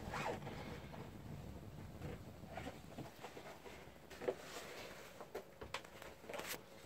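Quiet interior room tone with scattered faint clicks and light taps, the clearest about four seconds in and again near the end.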